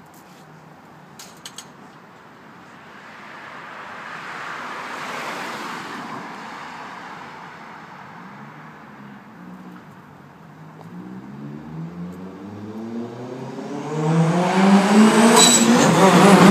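Mitsubishi Lancer Evolution IX's turbocharged four-cylinder engine, which has a misfire on cylinder 3, comes up from a distance and accelerates. Its pitch climbs and it grows loud in the last few seconds. Before it, a broad rush swells and fades about five seconds in.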